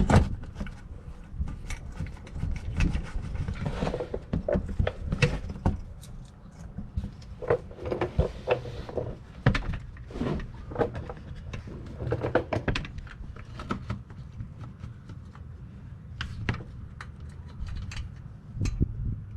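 A plastic engine underbody shield being put back up under the car and fastened: irregular clicks, knocks and rattles of plastic and hand tools.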